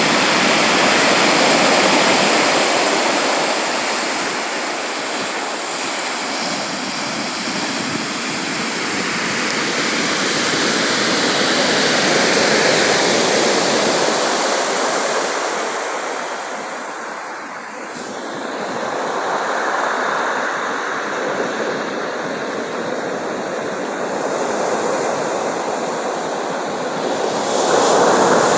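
Sea surf: waves breaking and washing up the shore in a continuous hiss that swells and eases every eight to ten seconds, dipping lowest about two-thirds of the way through.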